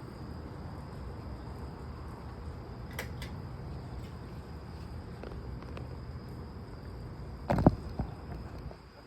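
Crickets trilling steadily in a high thin tone over a low background hum, with no thunder. A couple of small clicks come about 3 s in, and a brief loud thump about 7.5 s in.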